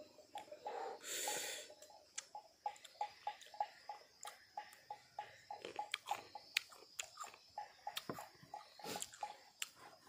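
A person eating green oleaster fruit: chewing and mouth clicks, with a sharp breath drawn in about a second in. Behind it, a faint regular pulsing chirp repeats about three times a second.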